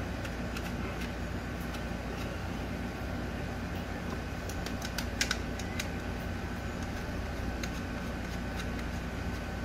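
Scattered light metal clicks and ticks of a hand tool driving in the T30 Torx bolts that clamp the fuel rail and injectors down, loudest in a quick cluster about five seconds in, over a steady low hum.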